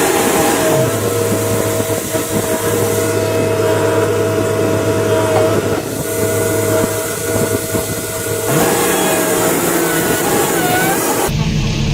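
Heavy construction machinery's diesel engine running with a steady, high hydraulic whine; the pitch steps up and down a couple of times. Near the end the sound cuts abruptly to a deeper rumble.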